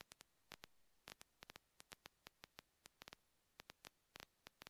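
Near silence, broken by faint, irregular clicks.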